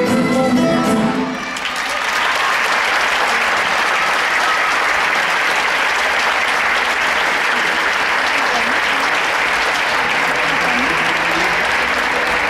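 Live folk music stops about a second and a half in, and a theatre audience applauds steadily through the rest.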